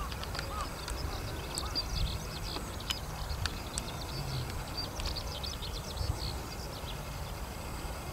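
Many short, high bird chirps and twitters, densest in the middle of the stretch, over a steady low rumble.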